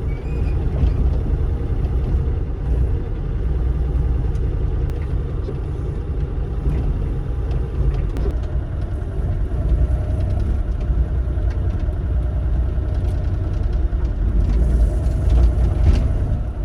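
Bobcat E35 mini excavator's diesel engine running steadily while it digs and levels rocky ground, with a few faint clicks and scrapes.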